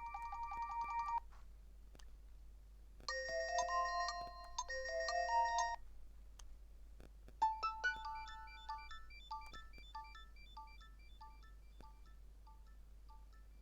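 Nokia 7710 ringtones playing in turn: a pulsing tone ends about a second in, a short two-phrase electronic melody follows, and from about halfway a new ringtone of short repeated beeps, about two a second, begins.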